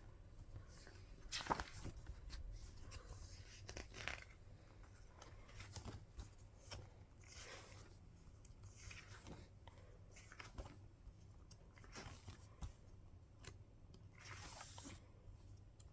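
A K-pop album's packaging being opened and handled by hand: scattered rustles, tearing and small clicks, the loudest about one and a half seconds in.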